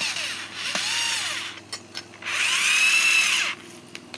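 Power drill driving screws to mount a flag holder, run in three bursts with the motor speeding up and slowing down each time, the third the longest and loudest. A few small clicks fall between the bursts.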